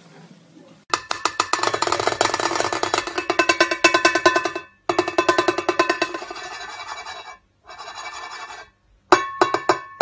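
A white cockatoo striking a brass cymbal with its beak in rapid, fast-repeating taps, the cymbal ringing. It breaks off briefly a few times, and near the end the strikes come singly, each with a clear ring.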